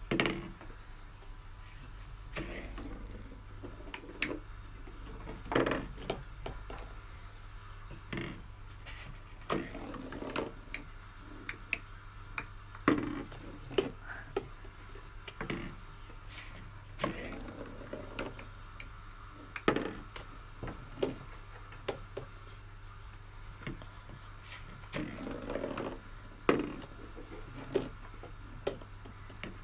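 Marbles played through a homemade cardboard Corinth (Japanese pinball) board: irregular sharp knocks and clicks as balls are shot up the lane, strike the paper-straw pins and drop into the cardboard scoring trays, with a few short rattles of balls rolling together.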